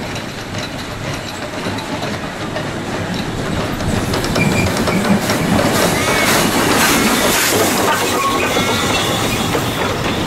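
South African Railways class Ng15 two-foot gauge steam locomotive running with its train, getting louder about four seconds in.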